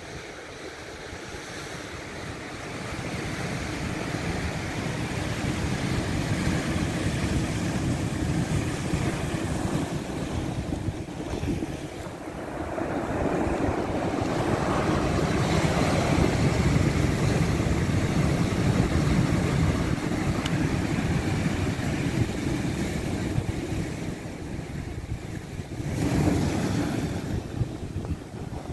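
Atlantic surf breaking and washing over a beach of rounded stones, swelling and ebbing with the waves: loudest about halfway through, with another surge near the end. Wind buffets the microphone.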